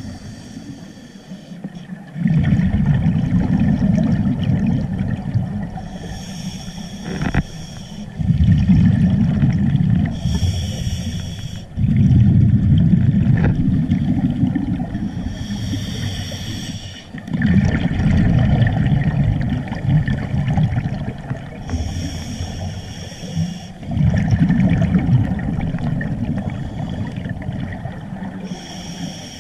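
Scuba regulator breathing underwater: five hissing inhales, one about every five to six seconds, each followed by a long, rough bubbling rush of exhaled air.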